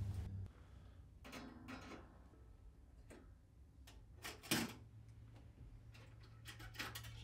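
Faint clicks and scrapes of pliers working the damaged coil door spring off a Whirlpool dryer's door hinge, with one sharper click about four and a half seconds in.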